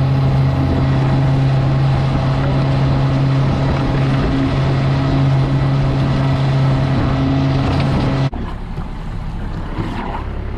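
Boat motor running steadily at a constant pitch under rushing wind and water noise, cutting off abruptly about eight seconds in to a quieter background.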